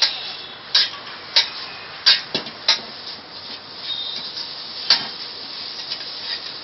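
Metal ladle clanking against an iron wok as noodles are stir-fried, irregular sharp strikes, several in the first three seconds and another near five seconds, over a steady hiss.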